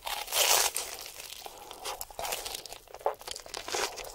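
Crunchy bite into a fried, potato-coated corn dog on a stick: a loud crisp crunch at the start, then smaller crunches as he chews and pulls the corn dog away from his mouth.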